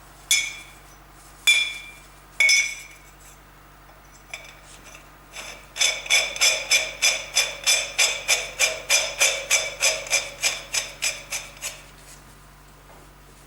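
Hammer blows on a ringing piece of metal. Three single strikes about a second apart come first, then after a few light taps a quick, even run of about two dozen blows at roughly four a second, each ringing at the same pitch.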